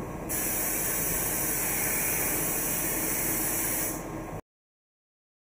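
Steady running hum of a CNC lathe robot cell, with a loud, even hiss of compressed air starting about a third of a second in and lasting about three and a half seconds. All sound cuts off suddenly a little after four seconds.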